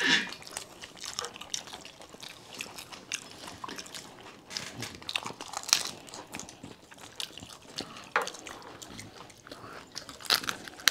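Panipuri being eaten: crisp puri shells cracking and crunching between the teeth, with wet chewing and slurping of the spiced water. The crunches come as irregular short bursts.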